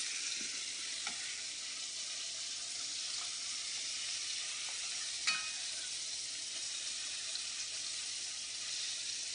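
Egg-dipped fish fillets frying in butter in a pan, a steady sizzle. A short click about five seconds in.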